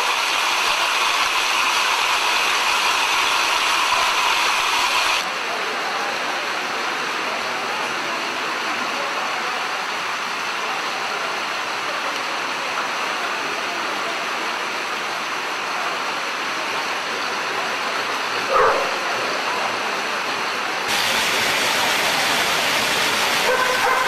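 Pit bull-type dogs running on non-motorised wooden slat treadmills: a steady running noise from the treadmills, with one short dog bark about three-quarters of the way through.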